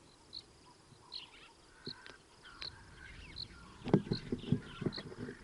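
A squirrel scratching and scrabbling directly on a microphone, a burst of loud close clicks and scrapes starting about four seconds in. Before that, a bird calls in short high chirps repeating about once a second.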